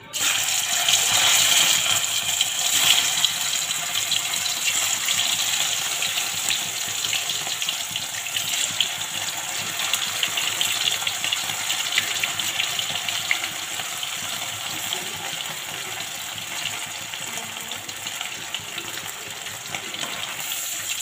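Boiled, peeled potatoes deep-frying in hot oil in a small pan: a loud, steady sizzle with fine crackling. It starts suddenly as the potatoes go in and eases slightly over the following seconds.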